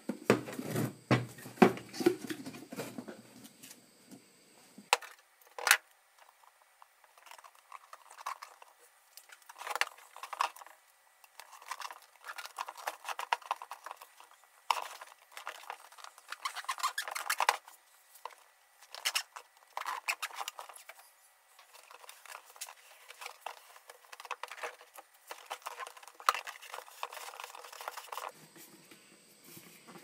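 Duct tape being pulled off the roll, torn into strips and pressed onto a cardboard disc, heard as irregular short bursts of ripping and crackling with light handling knocks.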